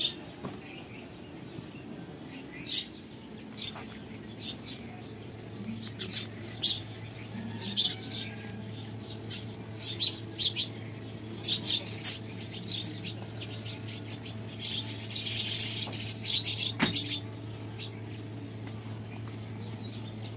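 Small birds chirping, short high chirps scattered throughout, over a steady low hum that sets in a few seconds in. About fifteen seconds in there is a brief rustle, fitting bedding being shaken out.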